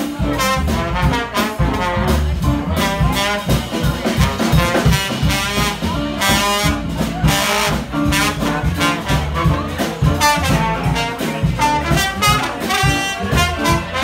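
Live swing band playing, a horn section of saxophone and brass leading over upright bass and drums with a steady beat.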